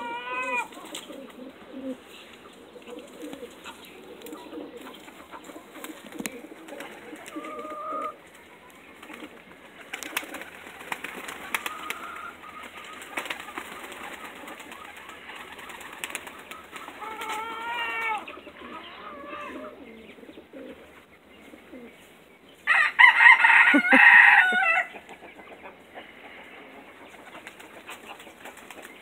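Pigeons cooing softly, mixed with a few higher pitched calls from chickens, and one loud bird call of about two seconds near the end.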